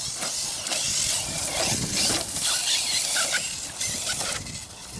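Electric 1/8-scale RC truggy driving over rough, rocky ground: the motor whine rises and falls with the throttle over a steady hiss of tyres and chassis on gravel and rocks.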